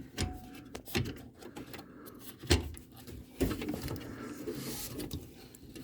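Scattered clicks, knocks and rattles of metal parts on a dishwasher door being worked loose by hand, the loudest knocks about two and a half and three and a half seconds in, with some scraping after the second.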